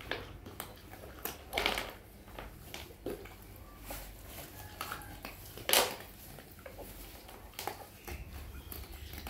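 Mother dog eating rice from a plastic plate: irregular wet chewing and lapping, with small clicks against the plate and two louder knocks, near two seconds in and near six seconds in.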